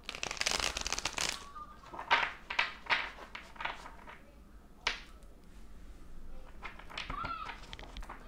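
A deck of tarot cards being shuffled by hand: a quick riffle of cards in the first second, then several short soft card slaps and rustles, with a sharp tap about five seconds in.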